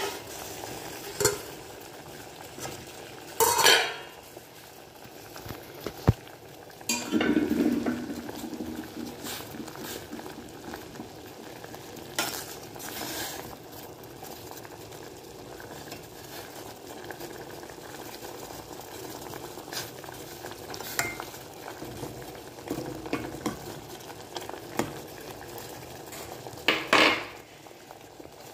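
Bathua leaves boiling in water in a stainless steel pot, a steady bubbling hiss. A steel ladle clinks and scrapes against the pot several times as it stirs and lifts out the liquid.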